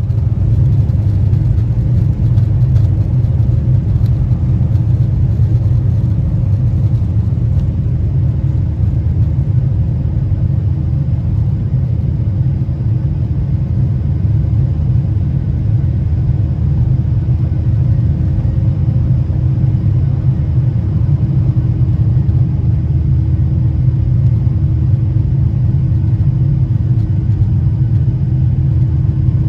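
Cabin sound of a Boeing 737-800 taking off, heard from a seat over the wing: its CFM56-7B engines at takeoff thrust give a steady, loud low rumble through the end of the takeoff roll, lift-off and climb-out, with a faint steady hum above it.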